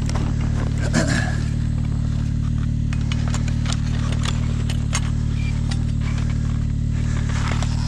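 Snowmobile engine idling steadily, with scattered clicks and scrapes from handling the snared wolf and a brief squeak about a second in.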